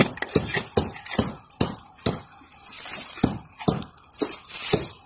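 A garden hand tool strikes into soil in a steady rhythm, about two blows a second, with gritty scraping between some of the strikes.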